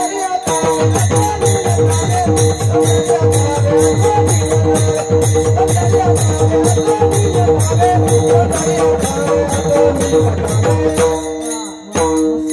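Devotional kirtan music: a chanted melody over steady held drone tones, with an even drum beat and jingling hand percussion. The beat breaks off briefly near the end, then resumes.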